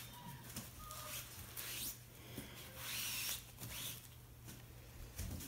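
Disposable plastic gloves rustling as paint-covered gloved hands are rubbed and wiped on a rag, with a few short swishes about two, three and four seconds in, over a low steady hum.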